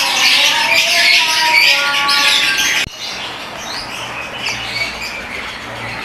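A room full of lovebirds chattering and screeching in a dense, loud chorus. About three seconds in the sound cuts off suddenly to a quieter place where only a few chirps carry on.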